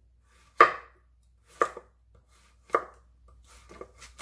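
Chef's knife slicing a firm Korean zucchini lengthwise into thin slabs on a wooden cutting board. Each stroke ends in a sharp knock of the blade on the board: four strokes about a second apart.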